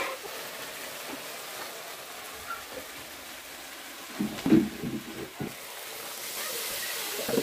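Masala frying in a steel kadai, a steady soft sizzle, with a few knocks and scrapes of a steel utensil against the pan about four to five seconds in.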